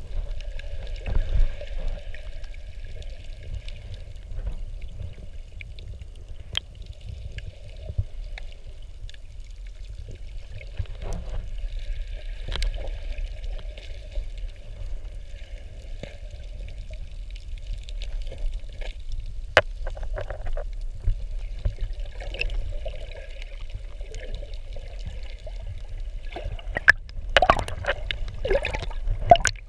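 Underwater water noise: a steady low rumble with scattered short clicks and crackles, and a cluster of louder clicks near the end.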